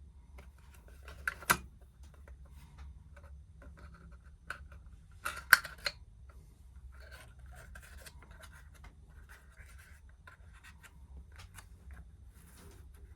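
Small clicks, taps and scraping as small diecast toy parts are handled and fitted together, with two sharper clicks about a second and a half in and about five and a half seconds in.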